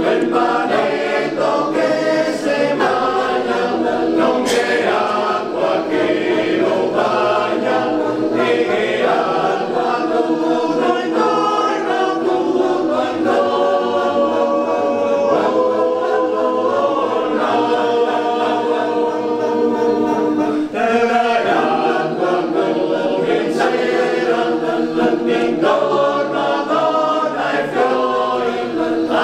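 Men's choir singing a cappella in several parts, sustained chords moving from phrase to phrase, with a brief break between phrases about two-thirds of the way through.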